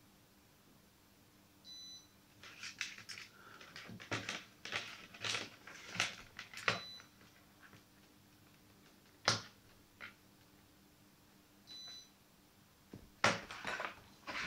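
Scattered light clicks and taps of tools and small parts being handled while a wire is soldered onto a microphone's circuit board. Two short, high electronic beeps sound, one about two seconds in and one near twelve seconds.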